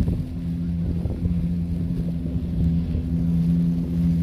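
Car engine running steadily at idle: an even low drone that holds one pitch throughout.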